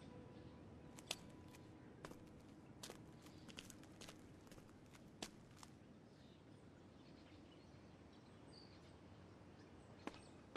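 Faint footsteps: sharp, uneven clicks through the first half, then near quiet until more steps near the end.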